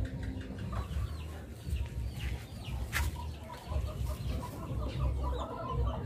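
Chickens clucking, busier in the last couple of seconds, with many short high chirps throughout and a low rumble underneath. A single sharp click comes about three seconds in.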